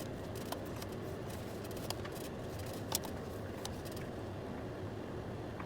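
Faint clicks and light rustling of hands handling the parts over a steady low hum; the vacuum is not running.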